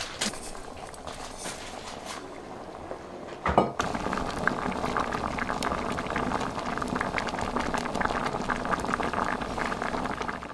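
Azuki beans cooking down into sweet bean paste (anko) in a clay pot, thick bubbles popping steadily. A single knock about three and a half seconds in, after which the bubbling is louder.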